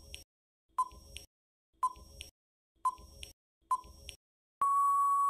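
Countdown timer sound effect: a short beep about once a second, five times, then one longer steady beep near the end as the countdown runs out.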